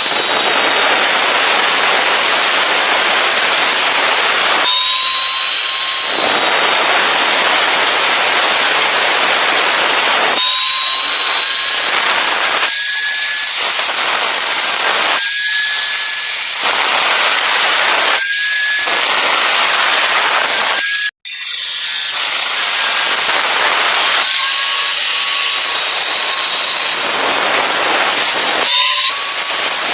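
Steady, loud, harsh hissing noise of metalwork on square steel tubing, with faint whining tones that come and go. It cuts out for an instant about two-thirds of the way through.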